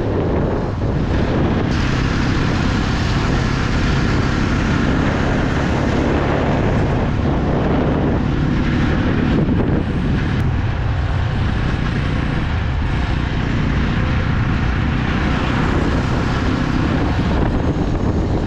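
Motorcycle under way on a paved road: its engine runs steadily beneath wind rushing over the microphone.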